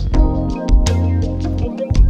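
Background music with a steady beat over a strong bass line.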